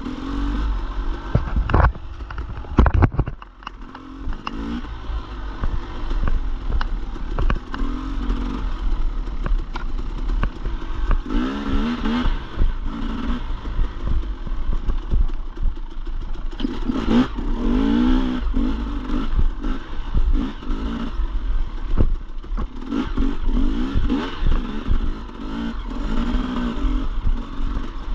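Dirt bike engine revving up and falling off again and again as it is ridden along a trail. Sharp knocks and clatter come from the bike over rough ground, the loudest about two and three seconds in, under a constant low rumble.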